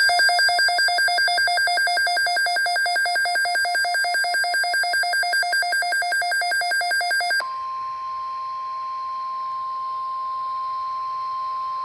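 Emergency weather alert tones: a loud, rapidly pulsing electronic trill lasts about seven seconds, then switches to one steady, single-pitch tone for about five seconds. The steady tone is the NOAA Weather Radio warning alarm tone, which signals that a watch or warning message follows.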